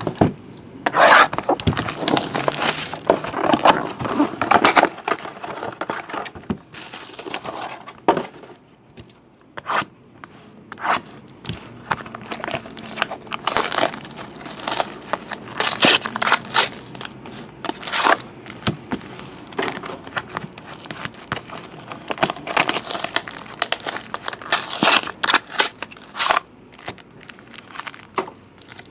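Plastic and foil wrapping on a box of trading cards and its packs being torn open and crinkled by hand: irregular sharp rips and rustling throughout.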